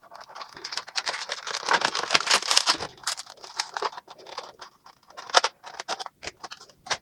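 Toy packaging being handled: crackling and rustling, densest in the first few seconds, then thinning into scattered small clicks and taps.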